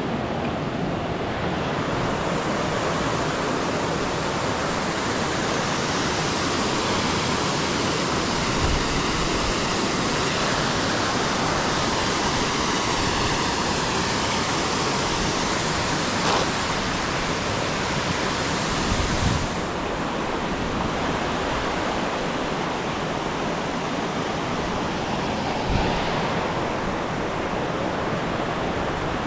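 Steady rushing of flowing creek water, with a few dull low thumps along the way.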